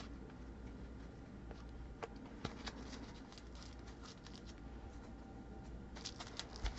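Faint, scattered taps and light rustles of trading cards being handled on a table, over a low steady hum, with a small cluster of clicks near the end.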